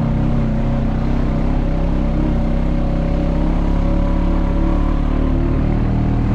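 Quad bike (ATV) engine running under way, steady with its pitch drifting a little as the throttle changes.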